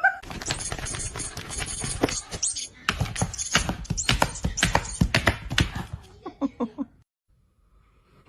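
A dog's claws clattering rapidly on a hard surface as it runs, a quick irregular patter of clicks that thins out and stops about a second before the end.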